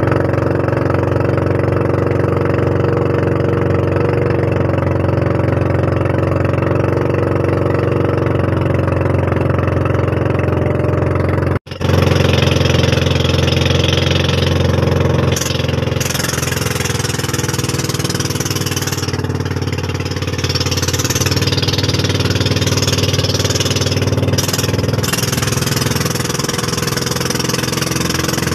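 Motorized outrigger boat's engine running steadily under way, with water rushing along the hull. The sound breaks off for an instant about halfway through.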